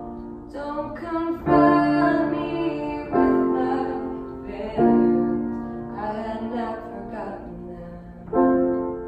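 Grand piano played in slow chords, struck about every second and a half and left to ring and fade, with a woman singing along.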